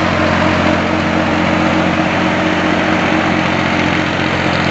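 Valtra A950R tractor's diesel engine running steadily under load while pulling a 14-disc intermediate disc harrow through the soil.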